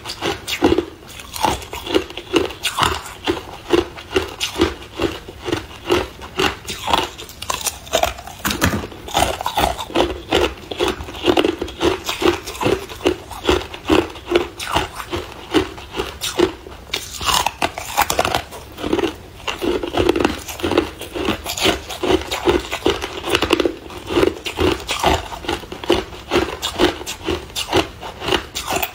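Hard clear ice being bitten and chewed close to the microphone: a steady run of sharp crunches, about two to three a second.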